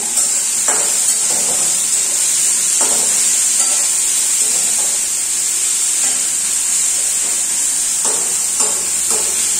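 Tomatoes frying in oil in a steel kadhai with a steady sizzle, while a metal spoon stirs them and now and then scrapes and knocks against the pan.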